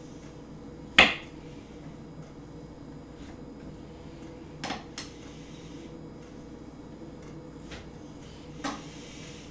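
Kitchen knife knocking on a cutting board while chopping cooked chicken breast: one sharp knock about a second in, two lighter ones close together near the middle, and another near the end.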